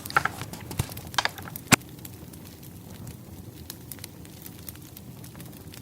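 Wood fire crackling: scattered pops and snaps over a faint hiss, with one sharp, louder pop a little under two seconds in and sparser crackles after.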